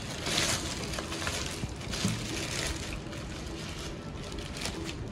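Clear plastic packing bag crinkling and rustling as a bicycle helmet is worked out of it by hand, in irregular crackly bursts.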